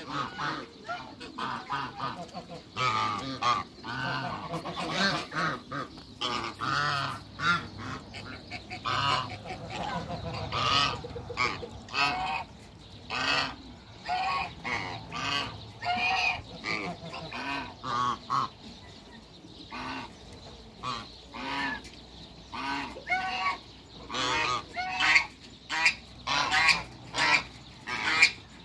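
Geese honking: many short, repeated calls from several birds, overlapping at times, with a brief lull about two-thirds of the way through.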